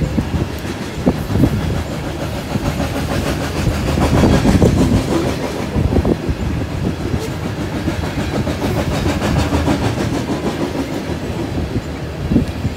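Coal train's cars rolling past close by: a steady rumble of steel wheels on rail, with a running patter of clicks as the wheels cross rail joints.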